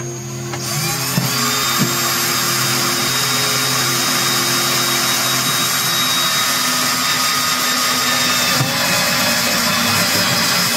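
Cordless drill running steadily under load as a step drill bit bores into a golf cart's plastic dash panel. It starts about half a second in.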